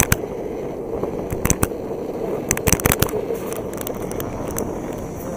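Electric skateboard rolling over rough pavement: a steady rolling noise with irregular sharp clicks and cracks, most of them clustered about halfway through.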